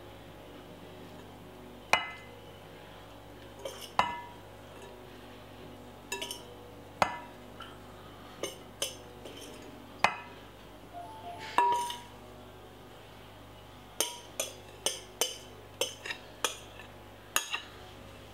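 A metal spoon clinking against a bowl as a noodle-and-rice salad is tossed. Single sharp clinks come every second or two, then quicker, about two a second, near the end.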